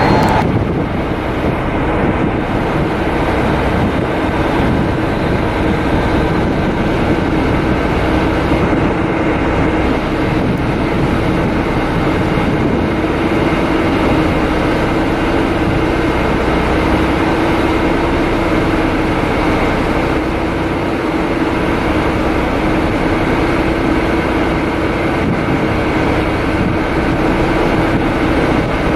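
Train running at a steady speed: a constant, even running noise with a steady low hum throughout.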